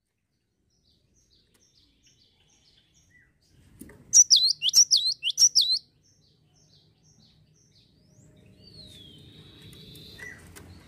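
Cinereous tit (gelatik batu) singing: soft high chips, then a few seconds in a loud phrase of about four quick notes, each sweeping sharply downward. Near the end comes a faint falling whistle over low background noise.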